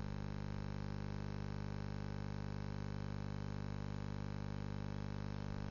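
Low, steady electrical mains hum with a faint hiss underneath, unchanging throughout.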